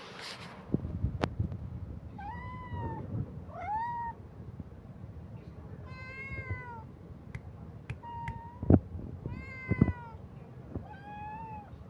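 Kitten meowing repeatedly: six short, high meows that rise and fall, spaced one to two seconds apart. A few sharp knocks fall between them.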